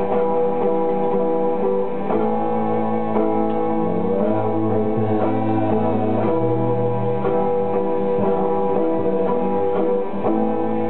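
Live experimental music: an acoustic guitar being picked over sustained drone tones from a tabletop electronic instrument. About four seconds in, one of the tones slides upward in pitch.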